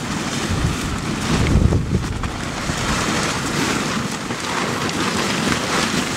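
Wind buffeting the microphone in gusts, with the stiff fabric of a pop-up field hut rustling and flapping as it is pulled open on its frame.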